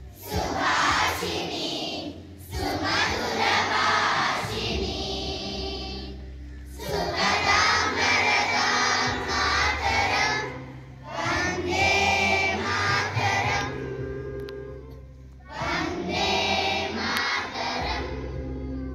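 A group of schoolchildren singing a song together in unison, in phrases broken by short breath pauses about every four seconds.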